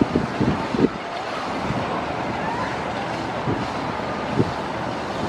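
Steady hiss of city traffic noise, with gusts of wind buffeting the microphone in short low rumbles.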